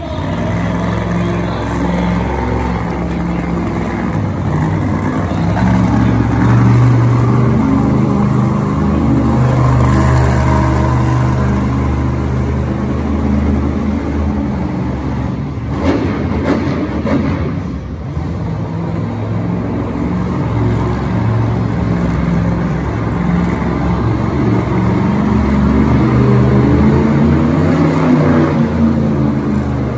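Monster truck's supercharged V8 revving hard, the pitch rising and falling as the driver works the throttle through spins and two-wheel tricks. The engine eases off briefly about halfway through, then climbs again.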